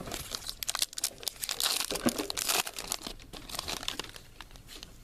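Crinkling and tearing of a trading-card pack wrapper as it is opened and handled, a dense run of crackles that dies down after about three seconds.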